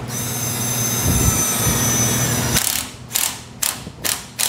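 Snap-on cordless impact gun driving a hose-clamp screw on intercooler piping. It runs in one steady whine for about two and a half seconds, then gives a string of short trigger bursts, two or three a second, as the clamp is snugged down.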